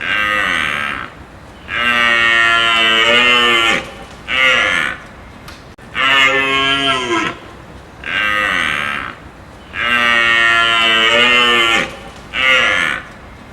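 A large animal calling over and over: long pitched bleating or bellowing calls, each falling in pitch at its end, in a pattern that repeats about every four seconds.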